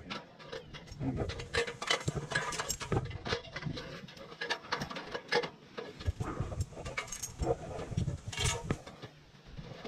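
Climbing a metal extension ladder leaned against a tree: irregular clicks, knocks and rattles of boots and hands on the rungs and of the climber's gear.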